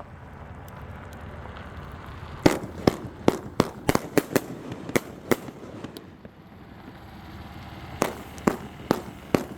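Fireworks going off: a quick run of about ten sharp bangs a few seconds in, then a pause and four more bangs near the end.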